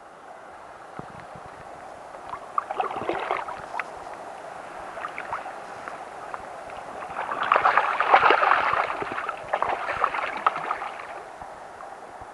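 Shallow river water sloshing and splashing around a hand and a barbel being released, with a short burst of splashing early and a longer, louder stretch of splashing a little past the middle.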